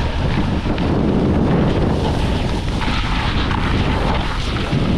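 Wind buffeting a body-worn camera's microphone during a fast downhill ride: a steady, loud rush with heavy low rumble.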